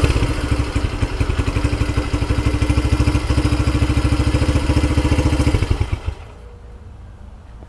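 2009 Honda Fan 125 single-cylinder four-stroke engine idling through an aftermarket Roncar popping ('estralador') exhaust, a steady fast putter settling after a rev. The engine stops about six seconds in.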